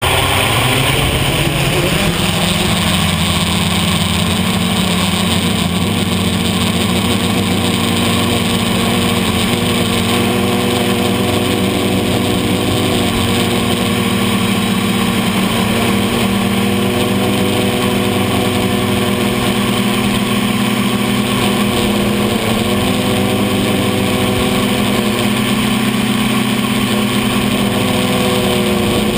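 A 450 mm quadcopter's electric motors and propellers buzzing loudly, heard from the GoPro mounted on its frame. The pitch rises over the first couple of seconds as the motors spool up to lift off, then holds as a steady drone with small shifts in pitch as the throttle changes during the climb.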